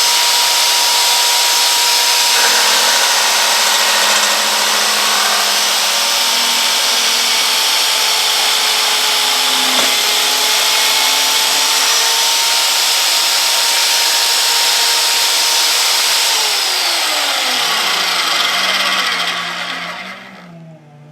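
Vevor magnetic drill press running under load, its annular cutter boring through steel plate: a loud, steady motor whine over grinding cutting noise. Near the end the whine sinks in pitch as the motor slows, and the sound dies away.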